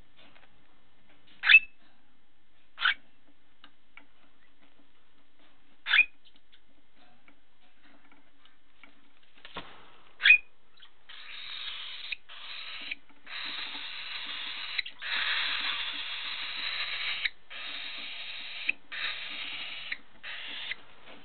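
Young cockatiel giving short sharp chirps a few seconds apart, then, from about halfway, a raspy continuous calling in spells of a second or two with short breaks.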